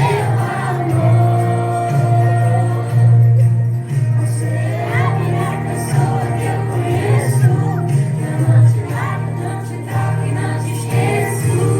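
Upbeat music with singing voices over a steady beat.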